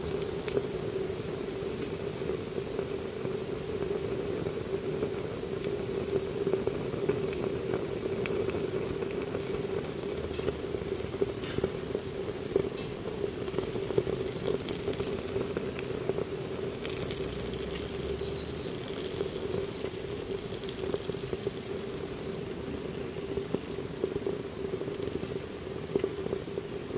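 Panties burning in a stainless steel pot of milk and honey, with scattered small crackles and pops over a steady low hum.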